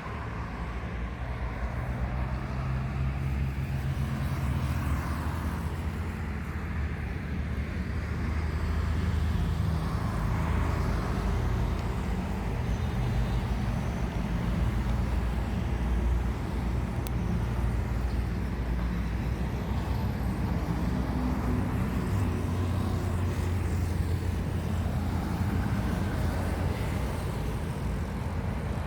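Steady low engine rumble with a few held low tones, swelling a little about a third of the way in.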